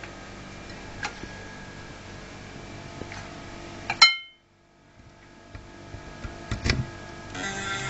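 Damaged 3.5-inch hard disk drive powered on and trying to spool up. It gives a steady faint hum with occasional sharp ticks, and a loud ringing ping about four seconds in. The sound then cuts out abruptly and returns as a rising noise with more ticks.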